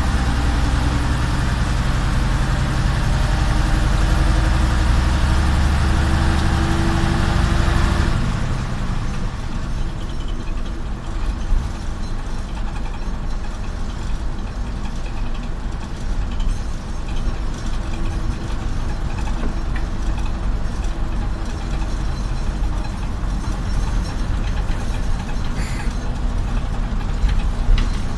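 Jelcz 043 bus's diesel engine heard from inside the cabin, pulling under load with its pitch slowly rising for about the first eight seconds, then abruptly quieter as a steady lower running noise while the bus rolls on.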